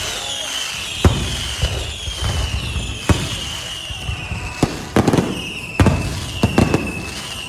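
Electronically fired fireworks going off: about a dozen sharp bangs at uneven intervals, over high whistling tones that slide down in pitch.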